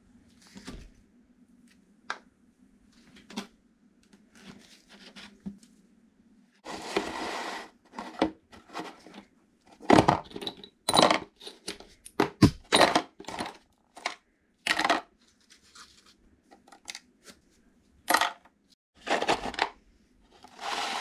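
Metal parts of a hydraulic bottle jack clinking, knocking and scraping as they are handled and worked on, with a longer noisy scrape about seven seconds in and a run of sharp knocks around the middle.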